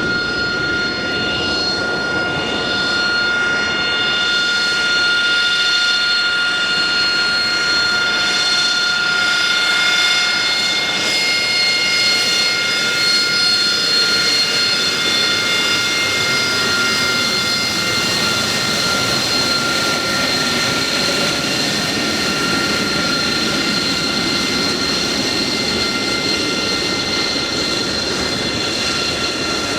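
AV-8B Harrier's Rolls-Royce Pegasus turbofan running at taxi power as the jet taxis: a loud, steady high whine of several tones over a rushing noise.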